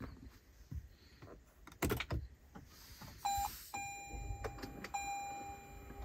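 A few sharp clicks as the car's push-button power switch is worked. About three seconds in, the car's electronic chime sounds: a short beep, then a long steady high beep with a brief break.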